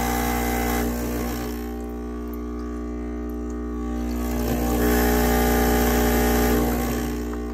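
Gaggia Classic's vibratory pump humming as water streams from the open group head. The hum drops about a second and a half in as the dimmer-switch flow control throttles the pump, swells again from about five seconds in with the fuller flow, and eases near the end.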